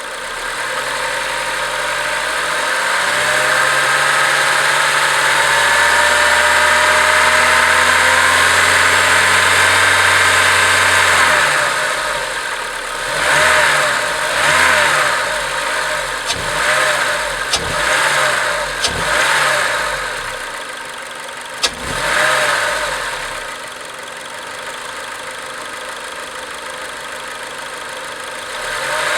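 Acura RSX Type S's 2.0-litre four-cylinder engine running, its speed creeping up slowly for about ten seconds, then blipped several times in quick succession before settling back to a steady idle.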